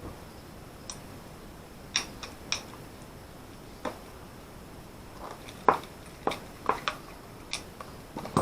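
Irregular sharp clicks and taps of small parts and hand tools being handled, about a dozen spread over several seconds, the loudest a little past the middle.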